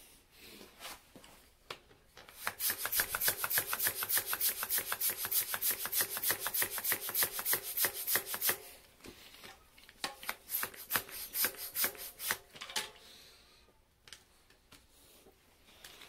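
Handheld mini bicycle pump being worked fast at the tyre valve: an even run of rasping strokes, about five a second, then a pause and a shorter second run. Air is barely going in; the speaker can't tell whether the tyre is inflating at all.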